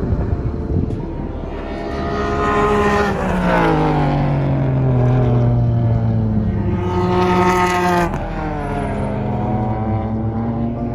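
Race car engines running on the circuit. A few seconds in, the engine pitch slides down, then climbs steadily under acceleration and drops suddenly about three-quarters of the way through, before holding level.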